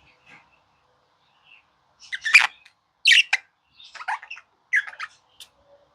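Budgerigar chirping and squawking: faint chirps at first, then a run of short, harsh calls from about two seconds in, the loudest near the start of the run.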